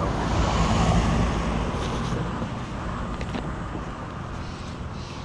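A car passing on the street, its tyre and engine noise swelling to its loudest about a second in and then fading away.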